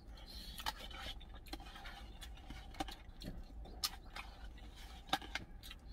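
A metal spoon scraping and clicking against a plastic food container, scooping up the last of the curry rice, in irregular short strokes with a few sharper clicks. A steady low hum runs underneath.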